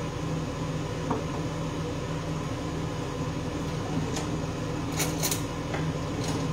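Steady low hum of room noise in a kitchen, with a few faint, light clicks and knocks scattered through it, mostly after the middle.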